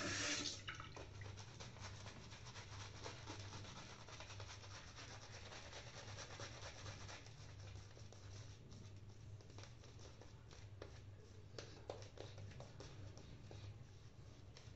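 Wet-shave sounds: a shaving brush rubbing lather over a stubbled face, a steady scratchy rubbing. In the second half it gives way to short separate scrapes of a razor through lather and stubble.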